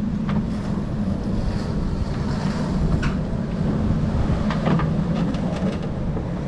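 Steady low rumble of wind buffeting the microphone. A few light clicks and knocks come partway through as the headlight assembly is handled into place.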